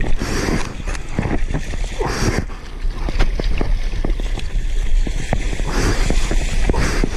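Sea water splashing and rushing right around the surfer in the waves, in several surges, with many sharp water taps and a heavy low rumble of water and wind on the microphone.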